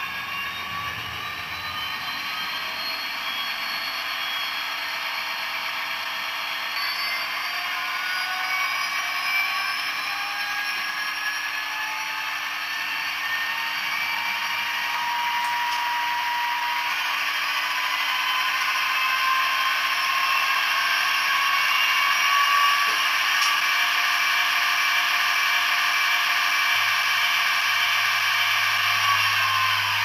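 Digital sound decoder in an OO gauge Class 57 model locomotive playing a recorded EMD two-stroke diesel engine notching up, through the model's small speaker. The engine note rises in pitch and grows louder as the power notch goes up.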